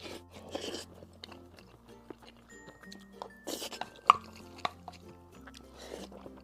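A person chewing and eating over soft background music, with a few short bouts of chewing and a sharp click about four seconds in.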